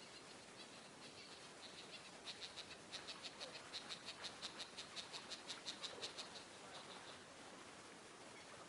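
An animal calling: a rapid run of short, sharp high notes, about five a second, that grows louder and then fades out, over a faint steady hiss of outdoor ambience.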